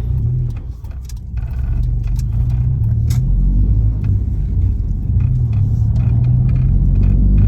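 2000 Honda Civic driving, heard from inside the cabin: a steady low rumble that builds as the car gathers speed. This is the wheel-area noise under diagnosis, still present after the tyres were swapped.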